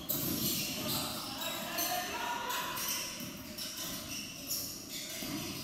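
Basketball being played on a wooden gym floor: the ball bouncing, shoes on the court and players calling out, all in the echo of a large hall.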